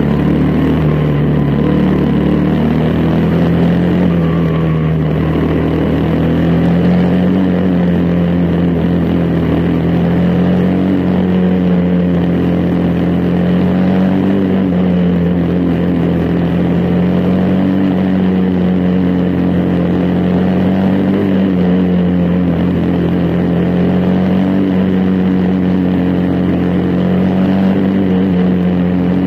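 Briggs & Stratton Animal single-cylinder engine of a quarter midget race car running hard at racing speed, heard loud and close from the car itself, its pitch dipping and rising a little lap by lap.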